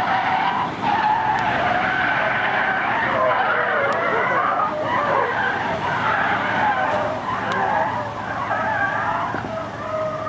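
Car tyres squealing during a sustained drift, a continuous screech that wavers up and down in pitch as the car slides.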